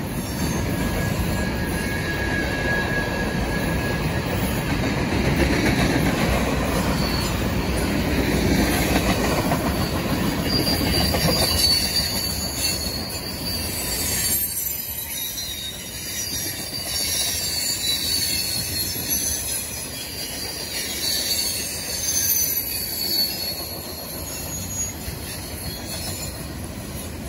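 Freight cars of a long mixed manifest train rolling past: a steady rumble and clatter of steel wheels on rail, with high, wavering wheel squeal from the cars. The rumble grows quieter about halfway through while the squeal carries on.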